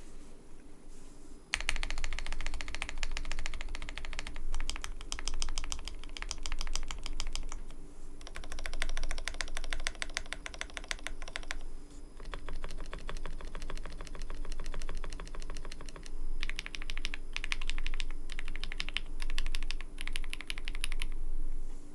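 Custom mechanical keyboard being typed on fast, a dense run of creamy keystrokes starting about a second and a half in. The typing comes in several long bursts with brief pauses between them.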